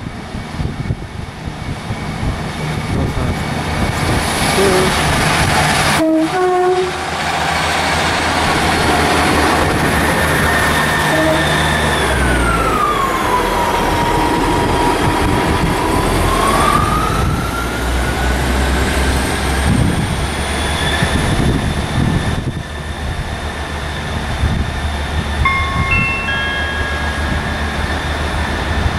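Northern Class 158 and Class 153 diesel multiple units moving through the station, diesel engines running steadily. A whine falls in pitch about halfway through, holds, then rises again. There are short high tones around six seconds in and again near the end.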